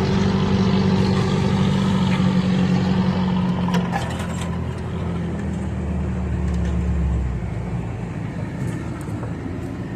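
Off-road vehicle's engine running steadily while driving, easing off about seven seconds in, with a few light clicks and knocks.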